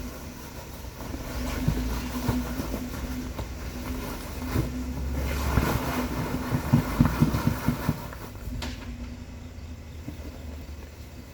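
Four-door Jeep Wrangler's engine running steadily while it crawls up a rocky hill. A run of sharp knocks comes in the middle, as the Jeep works over the rocks, and then dies away.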